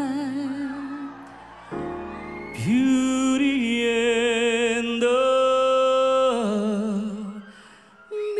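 A man sings long held notes with vibrato over instrumental ballad backing. The first note fades out about a second in. A new note swells up a little later, steps up in pitch around the middle, and dies away near the end.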